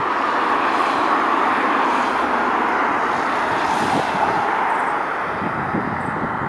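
Airbus A380-841 on final approach, its four Rolls-Royce Trent 900 turbofans giving a steady jet roar that swells over the first few seconds and then eases slightly.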